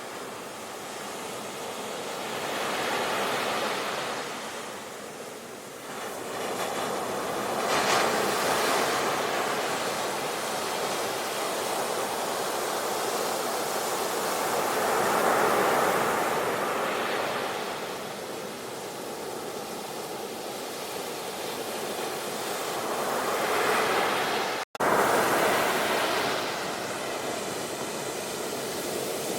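Sea waves breaking and washing ashore, the surf swelling and fading every few seconds. The sound cuts out for an instant near the end.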